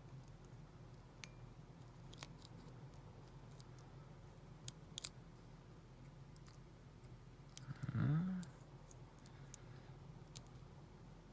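Faint, scattered small clicks of a lock pick and tension tool working the pins inside an American 700 padlock. About eight seconds in comes a brief low sound rising in pitch, louder than the clicks.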